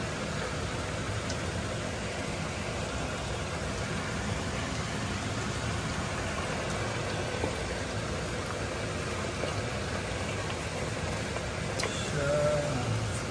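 Kitchen exhaust fan running steadily: a low hum under an even rushing noise, with a brief louder sound near the end.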